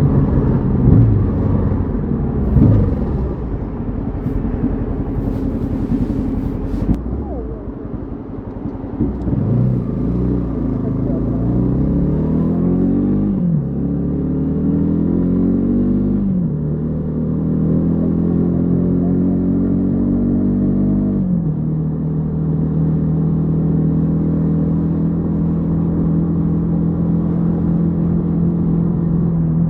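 Yamaha XTZ 150 Crosser S single-cylinder four-stroke engine, blipped a few times at first, then accelerating through the gears. Its pitch climbs and drops at each of three upshifts, and it then settles into a steady cruise for the last several seconds.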